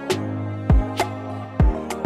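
Instrumental background music with a drum beat over held bass notes.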